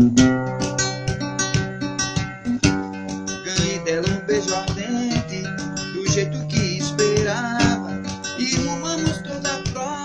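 Instrumental passage of a song: acoustic guitar strummed in a steady rhythm, with picked melody notes over it.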